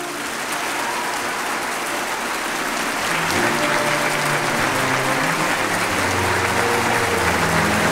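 Concert audience applauding. About three seconds in, the baroque ensemble begins playing low, held string notes underneath the clapping.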